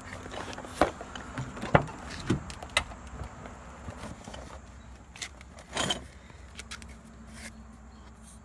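Clothes and boxed items being handled and loaded into a car: several sharp clicks and knocks in the first three seconds and a heavier thump about six seconds in, over a steady low hum.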